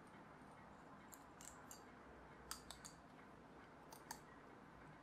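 Faint, sharp clicks of small pieces of 3D-printed PLA support fill being snapped and picked off a printed part by hand, about eight in all, scattered irregularly.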